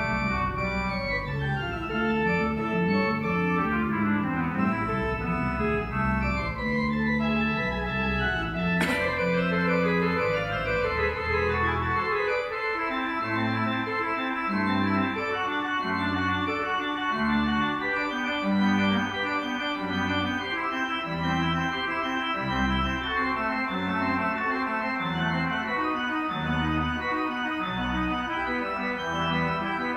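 Church organ playing slow sustained chords, with a low bass line moving about once a second in the second half. A single brief click sounds about nine seconds in.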